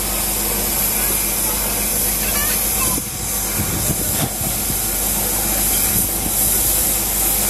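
Steam hissing steadily from the standing steam tank locomotive 75 1118, an even high hiss.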